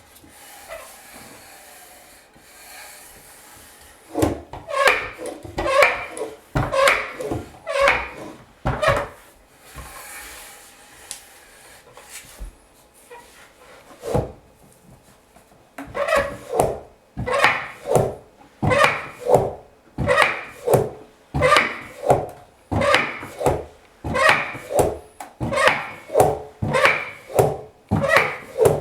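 Handmade wooden walking horse creaking and rubbing at its wooden leg joints as it is rocked back and forth to make it step. There is a run of strokes about four seconds in, a quieter pause, and then, from about halfway, a steady rhythm of about one and a half creaks a second.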